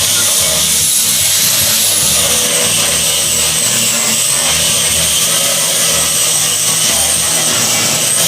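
Electric woodworking power tool running steadily, with a loud hiss and a high whine that drifts slightly up and down in pitch.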